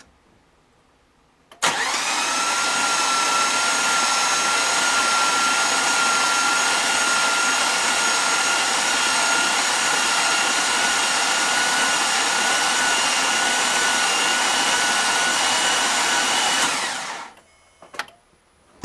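Starter motor cranking a Pontiac G8 GXP's LS3 V8 with its spark plugs out, a steady whirring whine that starts about a second and a half in and winds down near the end. The engine is being spun without firing to prime the oil system after a cam swap.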